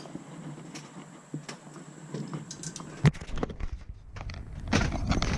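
Handling noise: scattered light clicks and knocks, a loud bump about three seconds in, then low rumbling rubbing on the microphone with more clicks.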